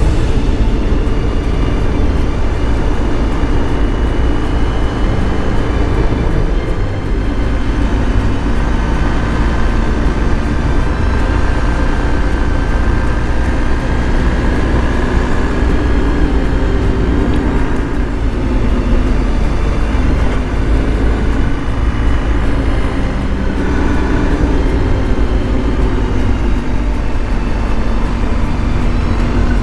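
BMW R 1250 GS Adventure's boxer-twin engine running steadily while the motorcycle is ridden, a continuous low rumble with a faint whine above it.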